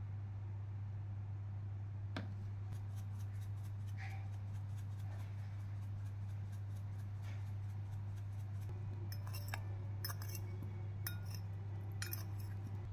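Faint rapid ticking, then from about nine seconds a metal utensil clinking and scraping against a glass bowl as oiled small potatoes are tossed in it, over a steady low hum.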